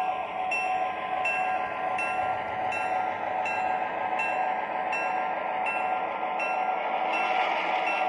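O scale model passenger train running past, the New Haven GP9 diesel's onboard sound system playing its engine sound over the rumble of wheels on track. A bell rings steadily, about every 0.6 seconds.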